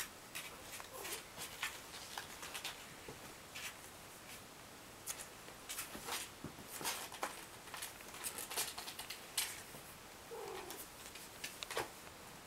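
Kittens scrambling over a cardboard box wall, their claws scratching and scrabbling on the cardboard in quick, irregular scratches. A faint, brief kitten squeak comes about ten seconds in.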